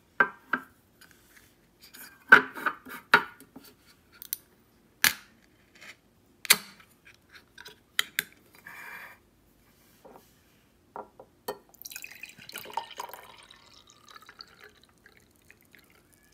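A drink can handled and knocked against a table, several sharp clicks and taps, and its ring-pull tab opened. Then, in the second half, canned coffee is poured from the can into a glass tumbler, splashing and trickling for about three seconds.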